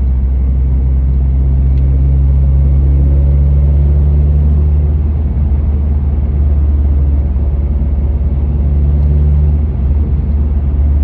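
Honda Civic Si's 2.0-litre four-cylinder engine running steadily at a low, even speed. The owner suspects this rough, rattly running comes from the valves.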